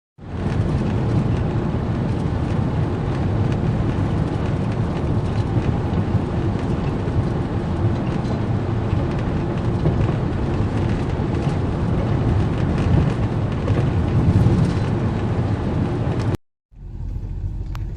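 Vehicle on the move: steady, rushing road and wind noise with a low rumble, shifting slightly in strength. Near the end it cuts off abruptly to a quieter steady low hum.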